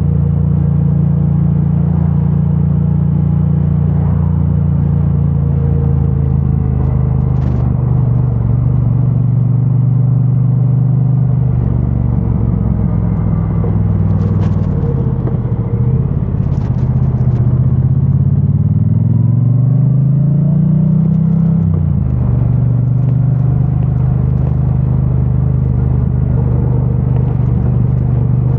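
2022 Triumph Bonneville T100's 900 cc parallel-twin engine running through its stock exhaust on the move, at steady revs at first. About twelve seconds in the revs sag. They then climb steadily under acceleration and drop suddenly at a gear change a little past twenty seconds, before holding steady again.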